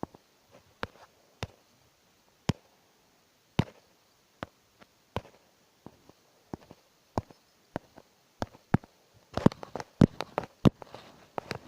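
A series of sharp, irregular clicks or taps, roughly one every half second to second, with a quick flurry of them near the end.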